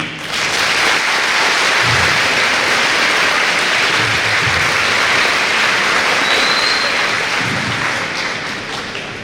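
Large audience applauding in a big hall. The applause swells in quickly and fades near the end, with one brief high whistle about six seconds in.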